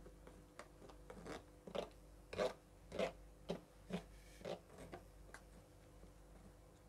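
A spoon scraping and pressing blended falsa (phalsa) berry pulp through a stainless-steel mesh strainer: faint, wet, irregular scrapes about twice a second, thinning out near the end.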